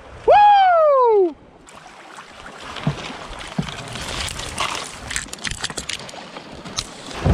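A loud 'woo!' shout in the first second. Then river water rushes and splashes around a kayak, with paddle strokes and branches scraping and clicking against the boat and paddle.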